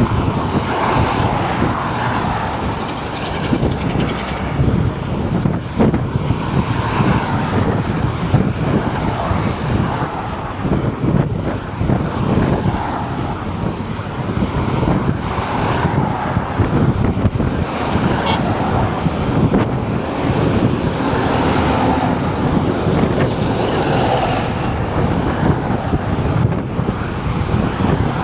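Road traffic on a highway: a steady wash of engine and tyre noise, swelling and fading every few seconds as vehicles pass.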